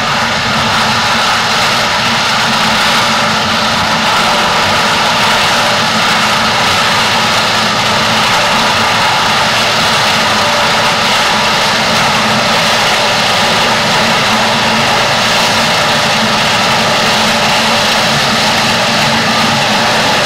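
Cameco two-row wholestalk sugar cane harvester running as it works through standing cane: a loud, steady engine and machinery noise with a constant hum that does not change.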